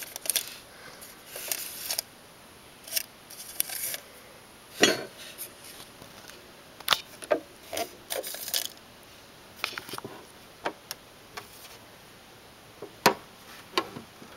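Small kitchen items being handled: irregular clicks, knocks and light clatter, about a dozen in all, the loudest about five seconds in and again near the thirteenth second.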